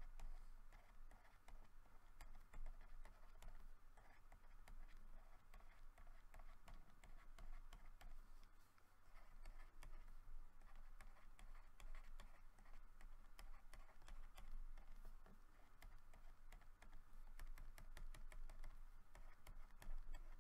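Many quick, faint clicks of a pen stylus tapping dots onto a drawing tablet, over a low steady hum.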